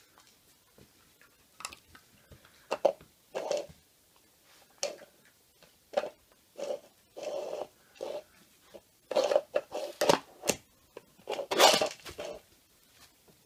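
Plastic-backed puppy training pad crinkling and scraping in short irregular bursts as a whippet puppy paws at it and shoves it across a wooden floor. The bursts grow busier and louder, loudest near the end.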